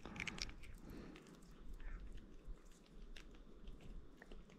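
Faint clicks and rustling as hands work a fishing lure's hook free of a small redfin perch.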